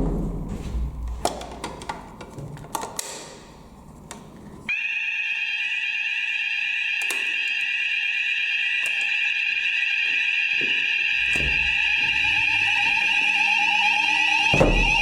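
A few clicks and knocks, then about five seconds in, fire alarm sounders start suddenly. They sound a continuous, high-pitched electronic alarm tone that grows slightly louder to the end. The alarm has been set off at a manual call point during a weekly fire alarm test.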